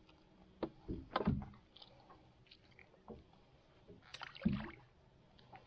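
Fish being gutted by hand on a plastic cleaning tray: a few soft knocks and handling thumps, then a louder handling noise just after four seconds as the guts are flung overboard.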